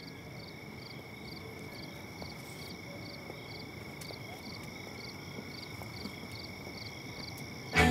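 Crickets chirping: a steady high trill with short chirps repeating about twice a second.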